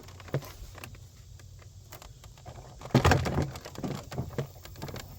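A 2007 Chrysler Aspen's plastic inner door trim panel being lifted up and pulled away from the door: scattered clicks and knocks, with a loud clatter of knocks about three seconds in.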